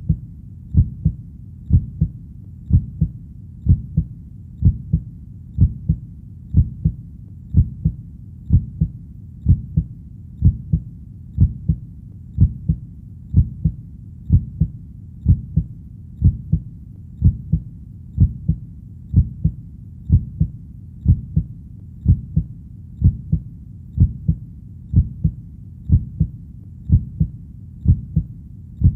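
Heartbeat sound: a steady, even rhythm of paired lub-dub thumps, about one beat a second, low and dull with little above the bass.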